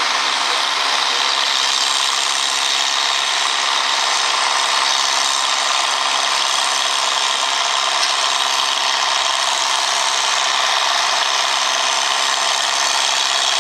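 Antique farm tractor engine running steadily and loudly through a tractor pull run: an even, buzzy drone that holds the same level and pitch throughout.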